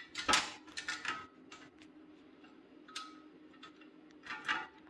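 Scattered sharp metallic clicks and clinks from bolts being handled and fitted into a motorcycle skid plate, the loudest just after the start and a small cluster near the end, over a faint steady hum.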